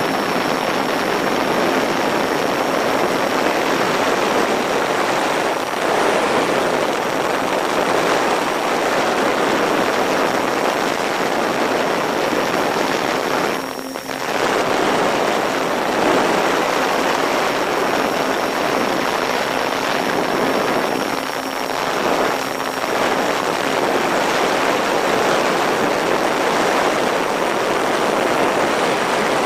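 In-flight sound from an MFD Crosswind Nimbus Pro RC plane: steady airflow rush over the airframe with the faint whine of its twin electric motors and propellers. The motor tone cuts out briefly about halfway through and drops away a few seconds later, leaving mostly the wind rush.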